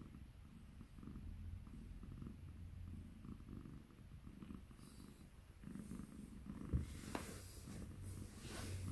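A domestic cat purring steadily, close up. Near the end there is a sharp knock and a brief rustle of fleece fabric as the cat is picked up and hugged.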